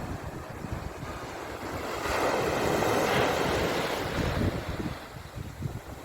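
Sea waves washing onto a shore, one wave swelling about two seconds in and receding after a couple of seconds, with wind buffeting the microphone.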